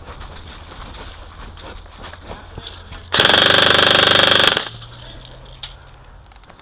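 Airsoft rifle firing one full-auto burst of about a second and a half, close and loud, a rapid, very even stream of shots. Faint small knocks and rustles before and after.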